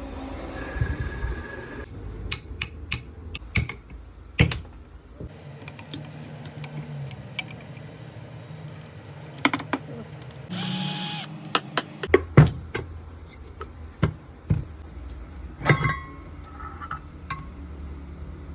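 Tools at work on a window air-conditioner fan motor during a bearing change: repeated sharp metal knocks and taps, and a power tool running briefly about ten seconds in, over a low steady hum.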